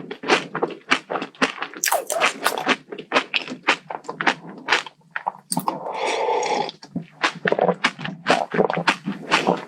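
Close-miked eating: a person chewing and crunching crisp dessert in quick, irregular crackles, several a second, with a longer, noisier mouthful about six seconds in.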